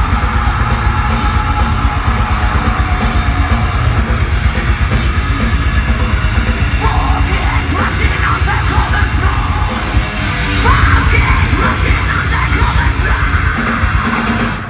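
Heavy metal band playing live at full volume: distorted guitars, bass and a pounding drum kit, heard from the audience. From about halfway through, a female vocalist sings over the band into the microphone.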